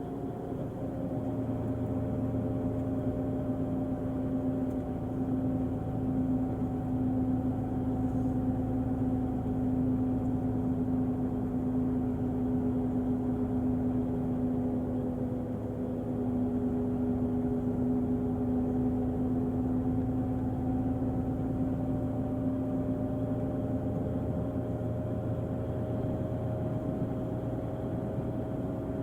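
Volvo diesel engine of an Irizar i6s coach running steadily: a low rumble with a steady droning tone over it, the pitch drifting only slightly.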